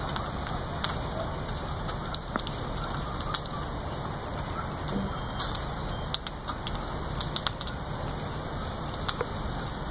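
House fire burning: a steady rushing noise with irregular sharp crackles and pops from the flames.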